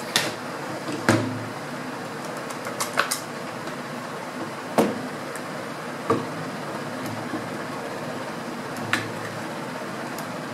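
Scattered sharp clicks and knocks, about six, as a screwdriver and the parts of a Hatsan air rifle are handled on a hard tabletop and the rifle's action is lifted out of its stock, over a steady background hum.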